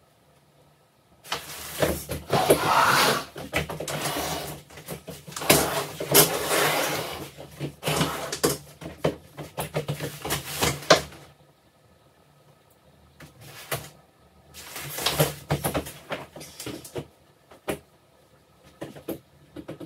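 Things being handled and moved about: rustling and scraping with many knocks and clicks, in two spells with a quiet gap between them.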